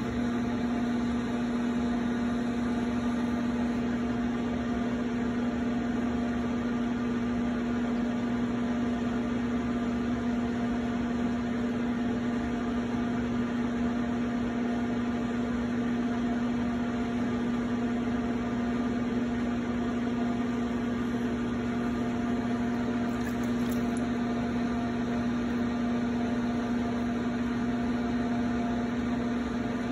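Electric potter's wheel running at a constant speed, its motor giving a steady hum.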